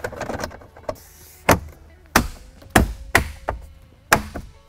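Plastic shifter bezel trim on a Ford F-150 console being pressed into place, its clips snapping in with about five sharp snaps over roughly three seconds.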